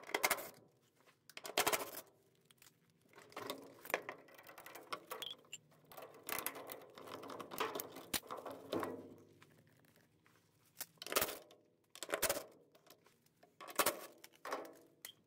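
Scattered clicks, knocks and rattles of hand tools and hard plastic parts being handled while the drain pump and its hose are taken off the underside of a GE top-load washer. There is no steady tool run, only short separate handling sounds.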